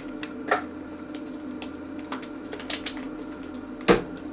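A few scattered light clicks and knocks from things being handled on an electronics workbench, the loudest near the end, over a low steady hum.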